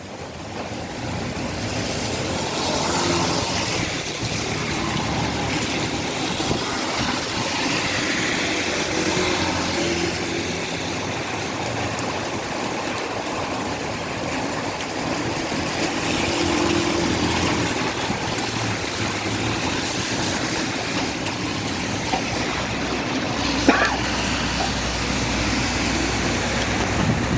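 Heavy rain and strong wind, a steady dense hiss of rain with gusts. A single sharp knock comes near the end, and a low wind rumble on the microphone joins in the last few seconds.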